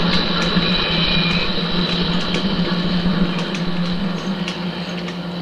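Model railway steam locomotive with its train running along the layout track: a steady motor hum with faint, irregular clicks of wheels over the rail joints.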